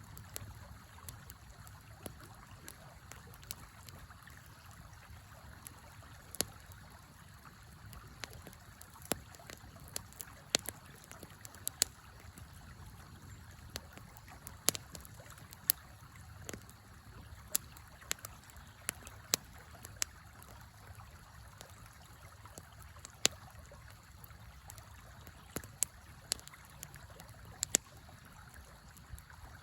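Wood campfire crackling, with sharp irregular pops about once a second, over the steady rush of a river.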